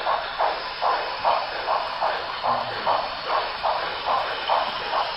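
Sound-equipped HO-scale model steam locomotive chuffing: an even run of hissy exhaust beats, about two to three a second.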